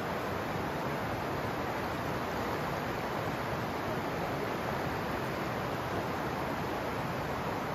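River water rushing over rocky rapids: a steady, even rush with no pauses or changes.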